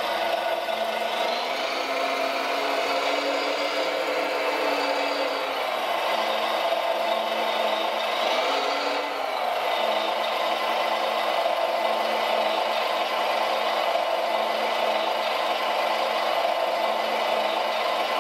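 RC model Volvo L250G wheel loader running: a steady mechanical whir with a rattle, its pitch rising and falling a few times as the machine drives and works its lift arm.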